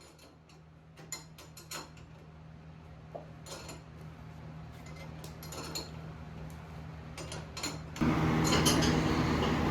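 Scattered sharp metallic clicks and clinks as sprint car wing parts and rivets are handled and riveted, over a steady low hum. About 8 s in, a loud steady motor drone cuts in suddenly, from yard work machinery next door.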